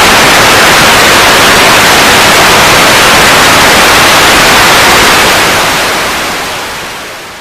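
Loud, even hiss of static holding steady, then fading away over the last two seconds or so.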